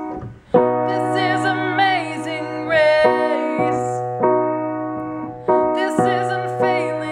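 A woman singing with vibrato while she accompanies herself on a grand piano. She strikes a chord about every one to three seconds and lets it ring.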